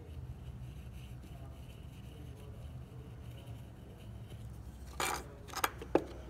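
A small aluminium block being set down onto the metal encoder base: a short scrape followed by a few sharp metallic clicks near the end, over a steady low hum.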